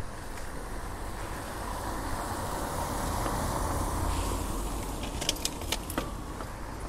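A car passing on a wet street, its tyre hiss swelling to a peak about three to four seconds in and then fading. A quick cluster of sharp clicks follows about five seconds in.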